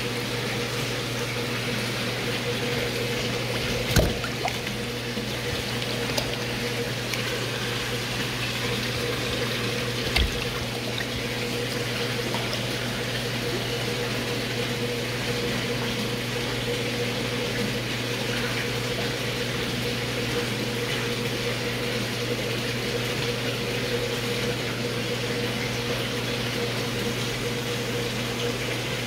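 Water running steadily into an indoor pond, with a constant pump hum underneath; two brief knocks about 4 and 10 seconds in.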